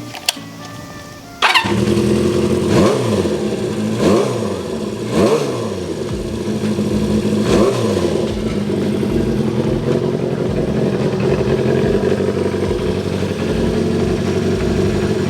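Honda CB400Four's inline-four running through its exhaust. It cuts in abruptly about a second and a half in, is blipped four times, then idles steadily. The muffler makes a rattling noise because the broken baffle core is loose inside it.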